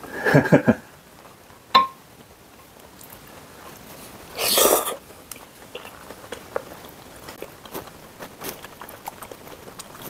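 Close-up mouth sounds of people eating: chewing with small wet clicks. There is a short voice sound at the start, a sharp clink about two seconds in, and a loud breathy burst around the middle.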